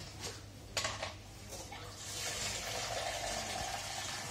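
Tap water running into a plastic jug, starting about two seconds in and growing louder as it fills. A single knock comes about a second in.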